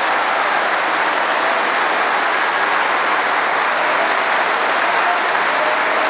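A large crowd applauding steadily, many hands clapping at once, with a few voices rising faintly near the end.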